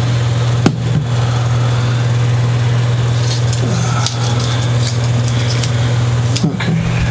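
A loud, steady low hum throughout, with a sharp click about a second in and a few light ticks in the middle.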